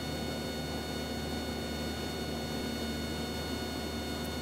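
Cessna 172's piston engine and propeller running steadily in level flight, heard inside the cabin as an even drone with a fixed set of tones.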